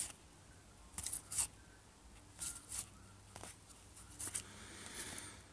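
1989 Upper Deck baseball cards sliding against one another as they are flipped off a stack by hand: a run of short, faint papery swishes, one every half second to a second.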